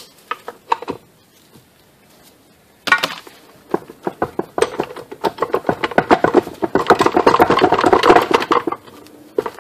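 Rapid metallic clicking and rattling from the gear shafts of a Honda S40 five-speed manual transmission being worked by hand in its case. A few light clicks come first. About three seconds in, a fast run of clicks starts, grows denser and louder, then stops.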